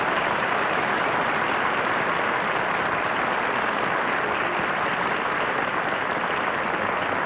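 Steady applause from a studio audience and the panel, a dense clapping without voices over it.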